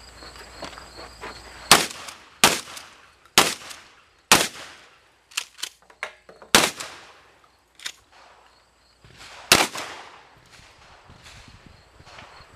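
Shotgun firing a string of about six loud shots at irregular gaps of one to three seconds, with quieter sharp clicks and knocks in between.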